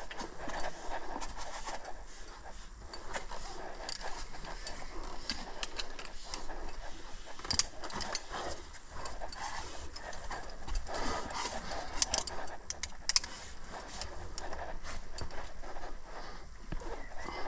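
Metal climbing gear, the carabiners and quickdraws racked on a harness, clinking and jangling irregularly as the climber moves.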